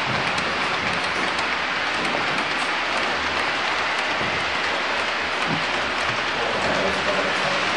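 H0 scale model freight train rolling along the layout's track: a steady even hiss of many small wheels on metal rail, with faint scattered ticks.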